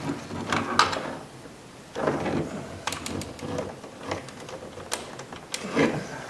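Scattered plastic clicks and scrapes from the power window and door lock switch being pried out of its plastic bezel with flat-blade screwdrivers.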